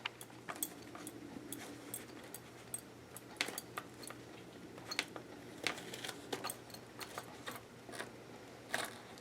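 Faint, irregular clicks and taps of an awl being pushed through leather to poke holes, with small handling sounds.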